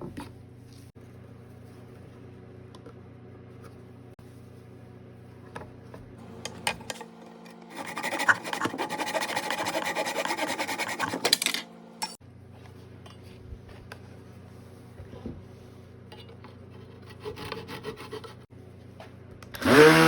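Wood being worked by hand with an abrasive or cutting tool, a dense rasping scrape lasting a few seconds, with scattered light taps of wood on wood. Near the end a small power tool's motor spins up briefly with a rising whine, the loudest sound.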